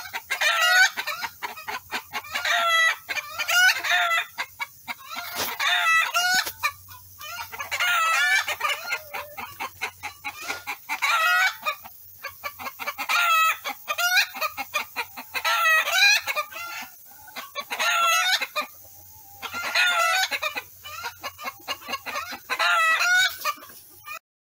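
Ameraucana chickens calling over and over, clucking and crowing, with short pauses between calls.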